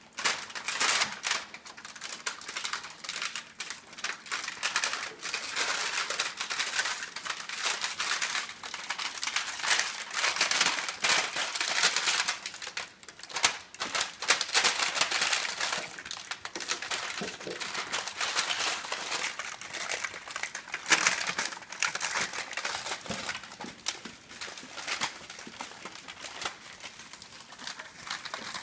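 Puppies nosing and pawing at a metal muffin tin and toys, giving a dense run of small clicks, clatters and crinkling with no let-up.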